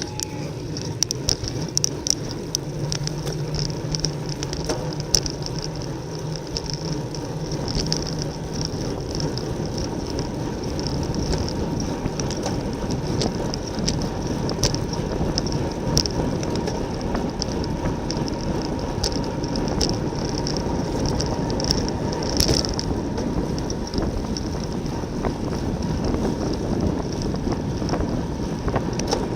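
Wind rushing over the microphone of a racing bicycle's camera at speed, with scattered light clicks and ticks from the bike.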